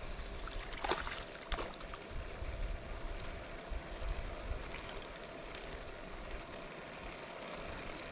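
Outdoor water ambience: wind and lapping water, with two brief sharp sounds about a second and a second and a half in.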